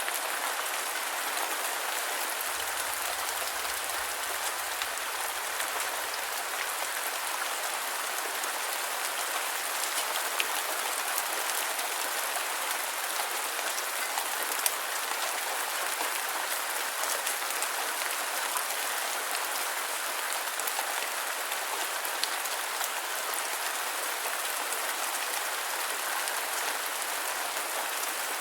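Steady rain falling: an even hiss with scattered sharper drop ticks, a few briefly louder ones.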